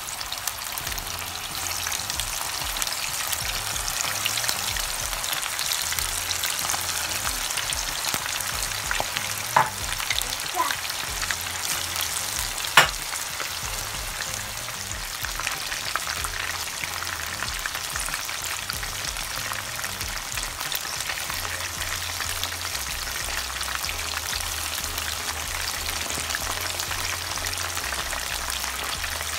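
Chicken pieces coated in a spicy fry mix sizzling steadily in hot oil in a pan. A few sharp clicks cut through the sizzle, the loudest about two-thirds of the way in.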